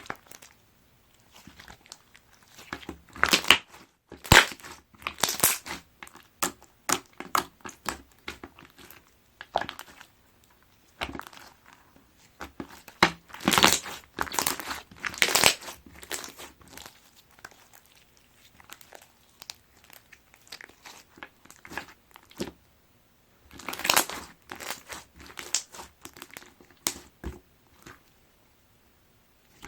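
Clear slime with small plastic Diform blocks mixed in, being squeezed and kneaded by hand: irregular crackling and crunching clicks, coming in louder bunches a few seconds in, around the middle and near the end.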